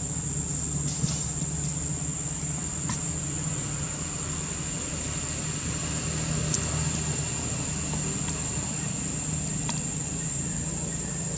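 Steady high-pitched drone of insects, over a low steady hum, with a few faint clicks.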